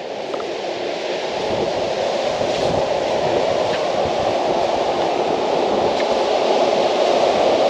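Steady rushing noise of wind and breaking surf on an open beach, building a little over the first couple of seconds and then holding.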